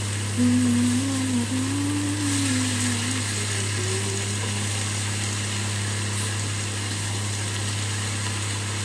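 A steady low mechanical hum, like a small motor running. About half a second in, a wavering hummed tone rises and falls for roughly three seconds.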